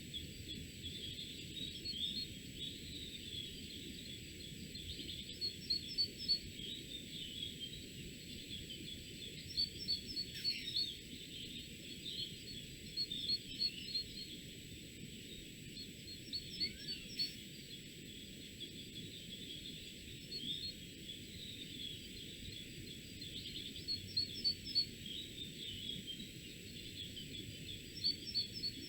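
Small songbirds singing in the woods: a short phrase of quick high notes recurs every three to four seconds over a steady low background hiss. A faint thin high tone runs underneath.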